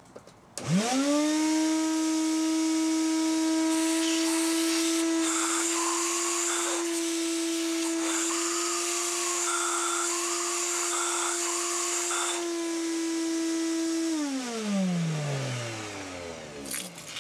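Shop vacuum switched on about half a second in, spinning up quickly to a steady hum. Its hose sucks metal shavings out of a freshly tapped air-injection port in a 2ZZ-GE cylinder head. It is switched off near the end, winding down in falling pitch.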